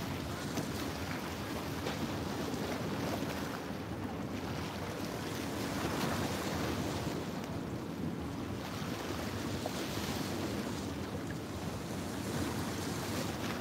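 Small waves washing and splashing against the boulders of a rock jetty, rising and falling every few seconds, with wind buffeting the microphone.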